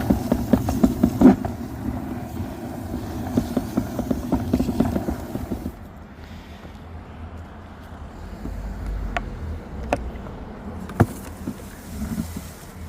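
Push leaf sweeper rolling over a thick layer of fallen leaves, its brushes and wheels making a fast rattling clatter as the leaves are swept in. The rattle stops about six seconds in, leaving a low rumble and a few separate knocks.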